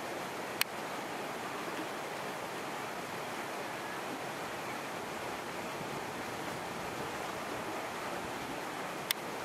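Steady, even outdoor hiss with no distinct source standing out, broken by two short sharp clicks, one about half a second in and one near the end.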